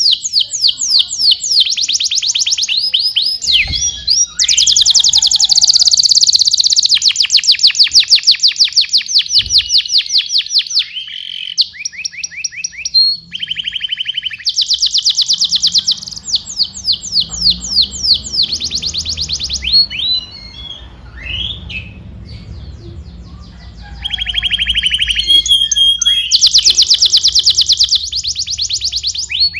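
Canary singing a long, loud song of fast trills: phrases of rapidly repeated notes that switch pitch and speed every second or two. The song thins to a few scattered notes about two-thirds of the way through, then picks up again with loud trills near the end.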